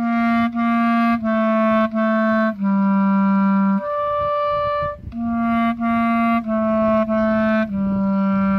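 Solo clarinet playing a short phrase: four short notes stepping down to a held low note, then a jump up a twelfth to a held high note as the register key is added (low A up to E). The phrase then starts again and steps back down to the low note.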